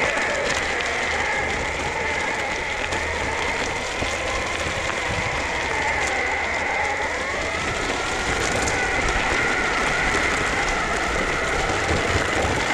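BajaBoard S2 Atrax electric skateboard rolling on a dirt-and-gravel fire trail, its 8-inch all-terrain wheels crunching and rattling over loose stones. A thin motor whine sits above it, and its pitch rises about six to eight seconds in.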